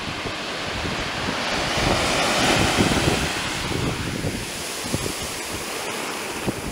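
Surf washing up a black-sand beach: a wave's foam rushes in with a swelling hiss that peaks about halfway and then eases off. Wind buffets the microphone throughout.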